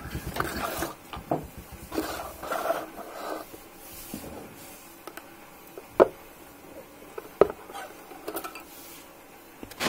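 Hands handling objects on a cardboard box: rustling and scraping, then a few sharp knocks as things are set down, the loudest about six seconds in.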